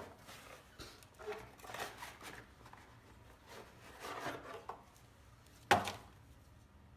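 Scattered scraping and rubbing of brake pads being handled and fitted into a disc brake caliper bracket, with one sharp clack near the end.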